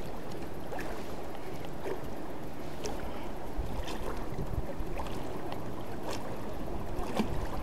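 Water lapping and sloshing against a float tube, with light splashing and a few faint clicks.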